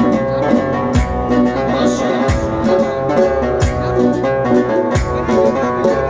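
Live electronic keyboard music: a melody in a plucked-string sound over a regular low beat.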